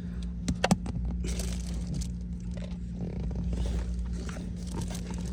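Plastic scraping and rustling as the cabin air filter and its cover are worked into place behind the dashboard, with a few sharp clicks about half a second in, over a steady low hum.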